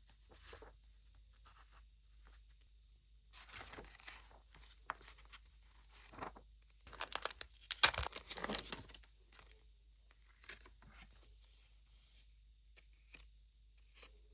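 Packaging being torn open by hand, with short rustles and a longer burst of tearing about halfway through.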